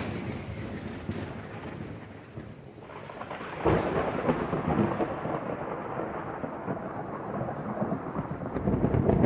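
Thunderstorm: thunder from a clap just before rumbling away, then a new crack about three and a half seconds in that rolls on steadily over the hiss of heavy rain.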